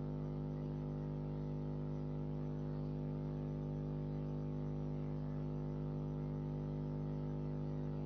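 Steady electrical hum: a low drone made of several even, unchanging tones over a faint hiss.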